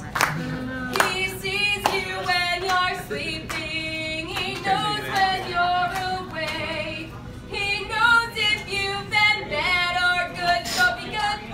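A woman singing unaccompanied, with long held notes, over sharp hand claps at a steady beat.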